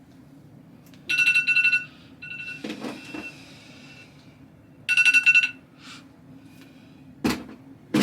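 An electronic ringing tone, a rapid trill lasting under a second, sounds twice about four seconds apart. Two sharp knocks follow near the end.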